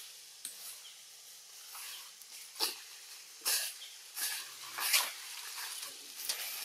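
Baby macaque in leafy branches, making four short, sharp hissing sounds about a second apart, starting about halfway in; the last is the loudest.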